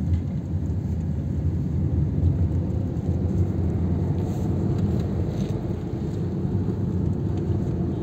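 Steady low rumble of a Suzuki car's engine and tyres heard from inside the cabin while driving.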